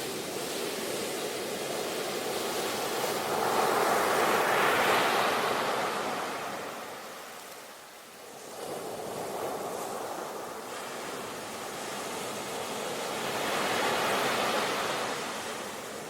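Ocean waves breaking on the shore and washing back, swelling twice, with a lull between.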